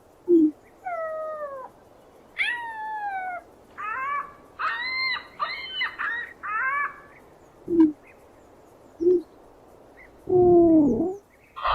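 A series of animal calls. A short low grunt comes first, then two falling pitched cries, then a quick run of pitched cries, two more short low grunts, and a loud, longer falling call near the end.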